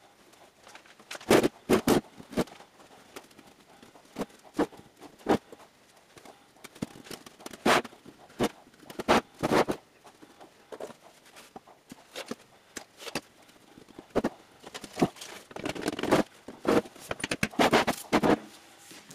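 A steel ammo can being handled while it is lined with ceramic fibre wool: irregular knocks and clunks of the metal can and its lid against the workbench, in clusters with quieter gaps between.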